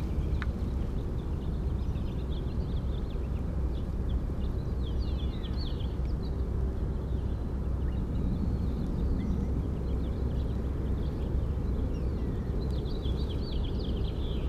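Small birds chirping and twittering in short, quick high calls over a steady low outdoor rumble.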